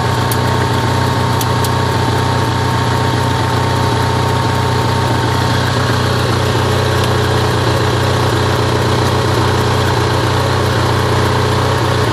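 Onan NH 6.5 kW generator's two-cylinder gasoline engine running steadily at its governed speed.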